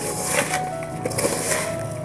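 Background music with steady held notes, over the gritty rubbing of a hand kneading grated coconut and sugar in an aluminium bowl, coming in repeated strokes.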